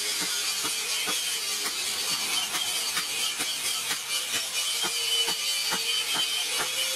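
Hammer blows on red-hot steel on an anvil, a sharp knock about twice a second, over a steady hiss.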